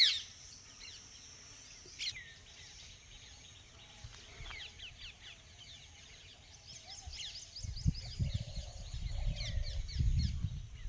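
Small birds chirping in the trees, many short, quick calls that fall in pitch, one loud call at the start and another about two seconds in. A low rumbling noise joins in over the last few seconds.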